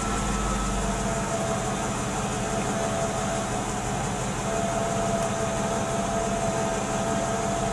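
Mercedes-AMG 55's V8 engine idling steadily just after starting, with a steady high whine over the engine note.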